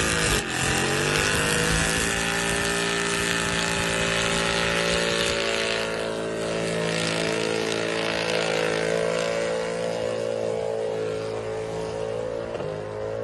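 Mercedes C63 AMG's 6.2-litre V8 held at high, nearly steady revs during a burnout, with the noise of the spinning rear tyres underneath. The revs settle within the first second, waver briefly near the end, and then drop away.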